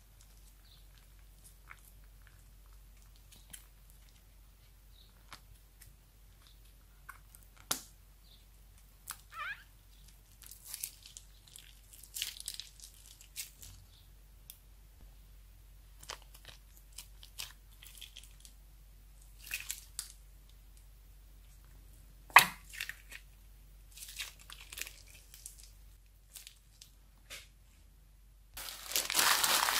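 Crunchy slime being pressed and worked by hand: scattered crackles and small sticky pops, with one sharp, loud click about two-thirds of the way through. Near the end a louder, continuous crinkling starts.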